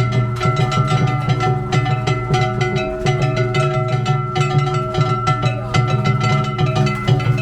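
Danjiri festival music (danjiri bayashi): drums struck in a quick, steady rhythm, with a plucked string instrument and a held high note over them.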